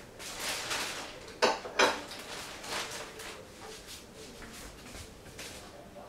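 Two sharp clinks of crockery in quick succession about a second and a half in, with lighter clatter and handling around them.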